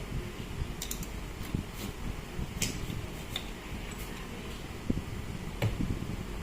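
Scattered light clicks and knocks over a low steady hum, typical of small parts and tools being handled on a workbench.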